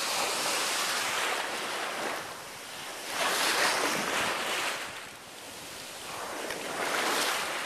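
Hurricane-driven surf: waves breaking and washing over the shore in rough, churning water, surging loud about every three to four seconds.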